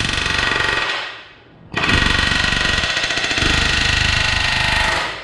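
Pneumatic air hammer with a punch bit rattling against a rivet in a steel truck frame rail, driving out the rivet's remains. It runs in two bursts, about a second, then a short pause, then about three seconds, before cutting off.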